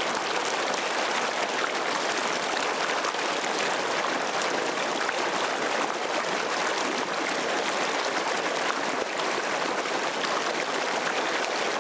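Waterfall: falling water splashing and rushing in a steady, unbroken wash, with little deep rumble.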